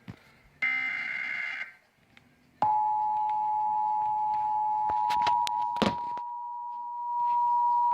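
A short buzzy digital data burst, then a sudden steady two-tone EAS attention signal (two tones near 853 and 960 Hz held together) from a weather alert radio, announcing a new warning. A few sharp clicks sound over the tone about two to three seconds after it starts.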